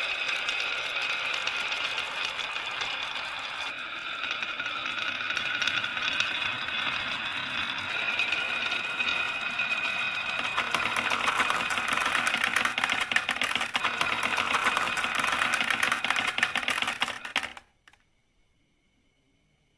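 Marbles rolling and clattering down a marble run track: a dense, rapid clicking with a ringing tone, which stops abruptly about two seconds before the end.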